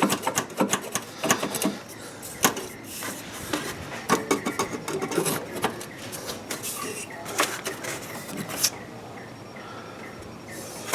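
Irregular clicks, light knocks and rattles of hand tools and parts on metal and plastic in the engine bay, while the bolts holding the air cleaner box are worked loose.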